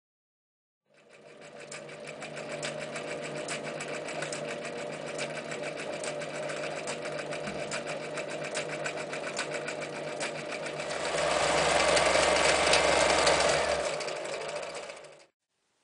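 Necchi Lydia 544 electric sewing machine stitching through denim: the motor runs with rapid, even needle ticking. It starts about a second in, gets louder for a few seconds near the end, then stops abruptly.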